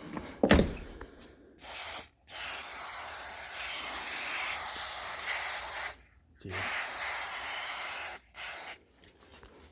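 Aerosol can of power-window cleaning spray hissing in four bursts: a short one, a long one of about three and a half seconds, one of under two seconds and a brief last puff. A short low thump about half a second in.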